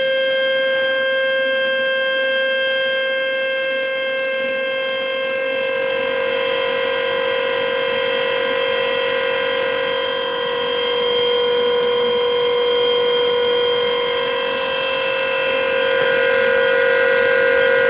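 Pot boiling: a steady, unwavering high tone with overtones over an even hiss, like steam whistling from the pot.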